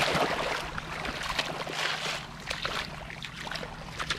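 Shallow seawater splashing and sloshing around a wader's legs and feet, with small irregular splashes over a continuous wash.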